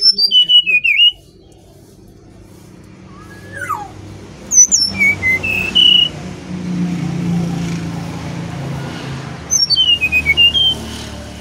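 Brown-chested jungle flycatcher singing three short whistled phrases, about four seconds apart. Each phrase is a quick run of clear notes falling in pitch and ending on a slightly higher note. A low rumble rises and fades underneath in the second half.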